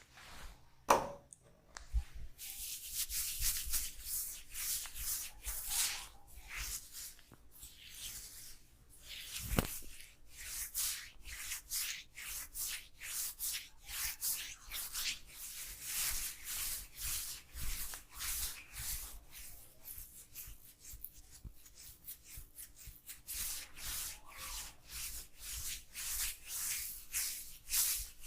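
Hands rubbing and kneading through hair and scalp in a head massage, close to the microphone. The rubbing strokes repeat at about two a second, with a sharp knock about a second in and another about ten seconds in.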